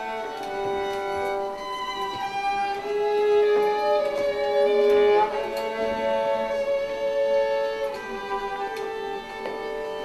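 Violins playing a slow melody of long bowed notes, swelling loudest in the middle.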